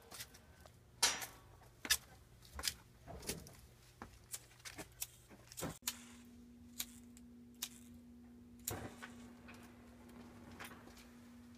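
Footsteps and scattered knocks going down cellar steps, the loudest about a second in. Near six seconds the sound cuts and a steady low hum takes over, with a few more knocks.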